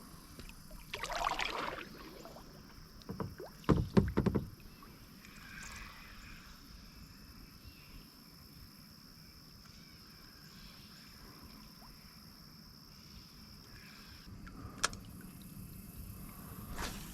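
Sounds of handling a kayak on the water: a splash about a second in, then a quick cluster of knocks on the hull, the loudest sound, around three to four seconds in, followed by a long quiet stretch with one more knock near the end.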